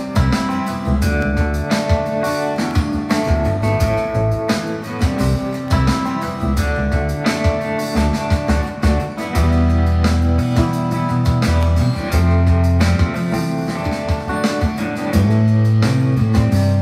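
Music with guitar and drums over a strong bass line, playing continuously with a steady beat.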